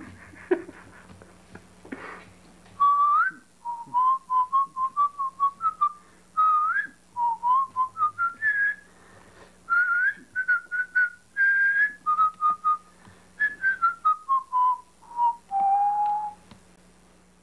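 A person whistling a lively tune in short, clipped notes, sliding up into some of them. The tune then steps downward and ends on one longer, lower note.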